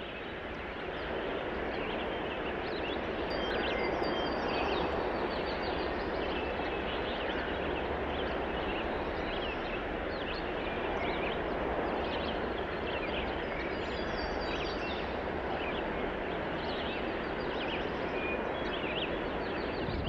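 Outdoor rural ambience: many birds chirping in short, quick calls over a steady rushing background noise.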